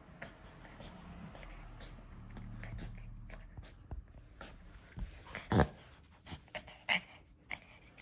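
Toy poodle breathing noisily, then making a quick string of short, sharp breaths, the loudest a little past halfway, during what the owner suspects is reverse sneezing.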